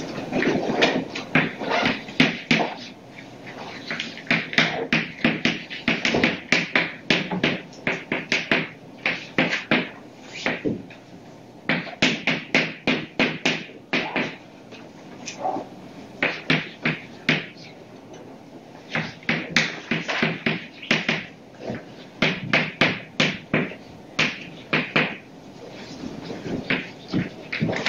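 Chalk tapping and scraping on a blackboard as someone writes, in quick runs of short strokes broken by pauses of a second or two.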